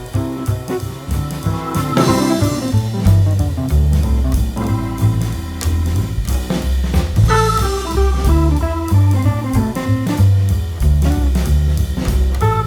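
Background music: a jazzy band with drum kit, bass and guitar playing to a steady beat.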